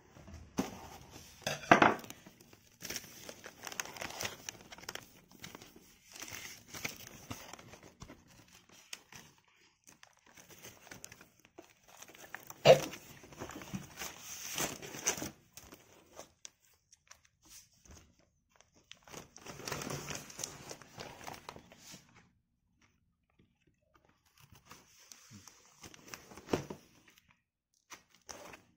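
Record sleeves rustling and crinkling in several bursts with pauses between as a picture-disc vinyl LP is slid out of its jacket and handled. Two sharp knocks, one about two seconds in and one near the middle, are the loudest moments.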